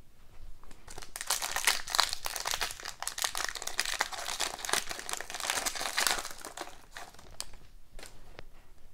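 Foil wrapper of a 2019-20 SP Authentic hockey card pack being torn open and crinkled by hand, a dense crackling from about a second in until about seven seconds, then a few light clicks near the end.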